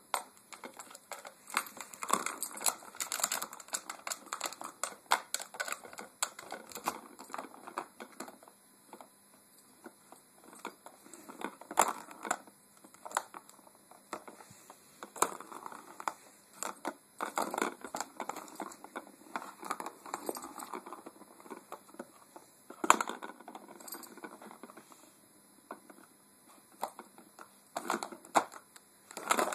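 A plastic cat track-ball toy clicking and rattling as a puppy paws and mouths it, its ball knocking in the track. The clicks are irregular and come in spurts with short pauses.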